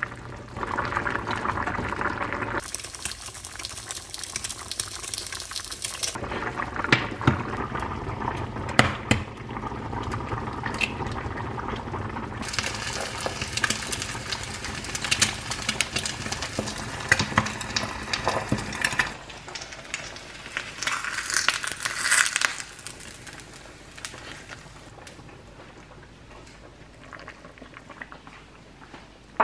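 Cooking sounds: a pot of potato gochujang stew bubbling on the hob, then an egg sizzling and crackling in a small frying pan, with scattered clicks and knocks of utensils against cookware. It quietens in the last several seconds.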